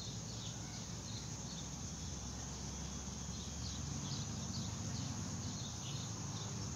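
Small birds chirping, short high notes repeating again and again, over a steady low rumble.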